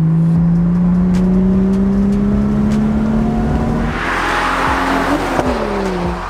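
Car engine pulling under acceleration, heard from inside the cabin, its note rising steadily. About four seconds in it gives way to a car passing close by outside: a rush of tyre and wind noise, with the engine note dropping as the car goes away.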